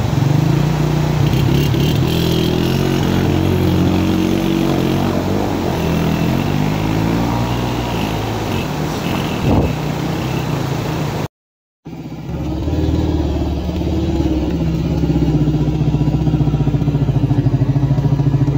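Motorcycle engine running and revving while riding through a rocky stream, its pitch rising and falling. The sound cuts out for half a second about eleven seconds in, after which the engine runs on steadily with a fast, even pulse.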